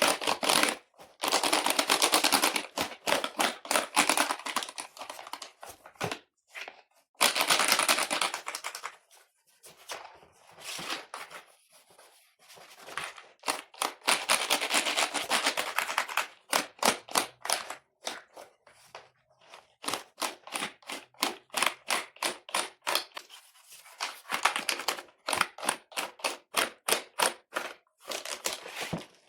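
Computer keyboard being cleaned: stretches of scrubbing over the keys alternate with runs of rapid clicking keys.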